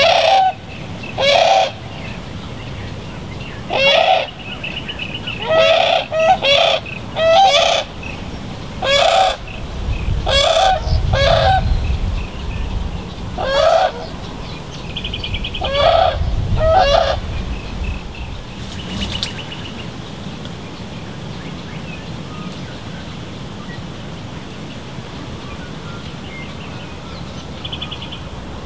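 Brolgas calling: about a dozen loud honking calls, singly and in quick pairs and triplets, over the first seventeen seconds, then the calls stop.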